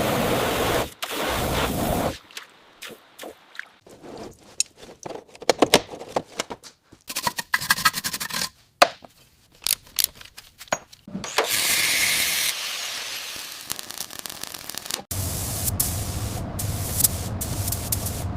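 Restoration-work sound effects: scraping and scattered sharp clicks and knocks, then a spray-like hiss, then from about three seconds before the end a steady low engine rumble.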